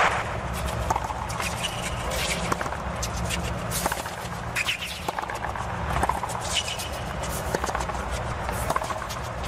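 Tennis ball struck by rackets and bouncing on a hard court in a rally, a series of sharp hits over a low steady arena background.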